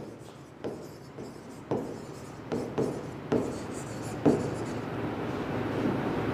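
Stylus scratching and tapping on an interactive smartboard screen as words are handwritten, with sharp taps at irregular moments.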